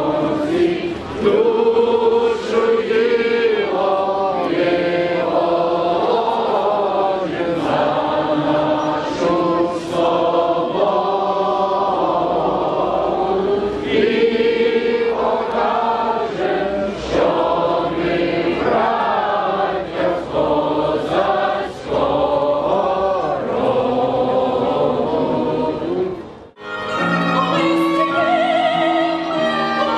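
A group of voices singing together in slow, held notes. About 26 seconds in the sound cuts off abruptly and switches to a violin playing with a singer and choir.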